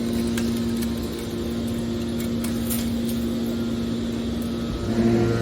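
Hydraulic scrap-metal baler's power unit running with a steady hum, a few faint clicks over it. Near the end it grows louder and a deeper tone joins, as the machine takes up load.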